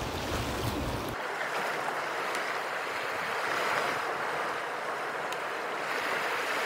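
Small sea waves washing onto a rocky shore, a steady rush of surf. For about the first second wind buffets the microphone with a low rumble that cuts off suddenly.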